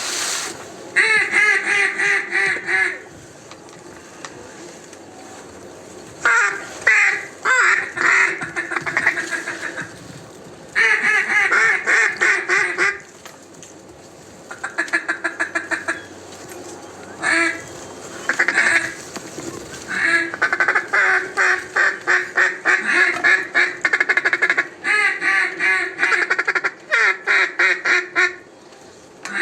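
Duck call blown in mallard hen quacks and fast feed chatter, in repeated runs of a second or two with short pauses between them.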